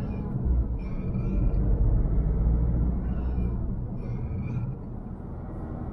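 Road and drivetrain noise inside a moving car: a steady low rumble that drops in level near the end.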